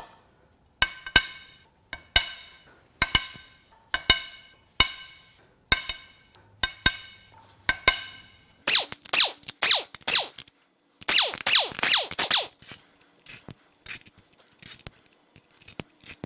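Cylinder head bolts on a Ford 2.7L EcoBoost V6 being cracked loose one after another: about eight sharp metallic cracks, roughly one a second, each ringing briefly. Then come two short spells of dense, rapid metallic clatter.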